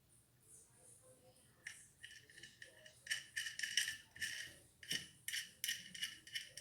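Small metal ceiling-fan fittings rattling and clinking as they are handled, in quick irregular strikes with a light metallic ring, starting about two seconds in.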